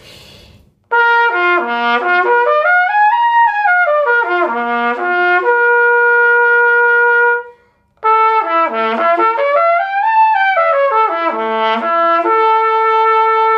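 Trumpet playing lip slurs: smooth, unbroken steps down and up between notes in wave-like arcs, each phrase settling on a long held note. Two phrases, with a brief breath between them a little past the halfway point.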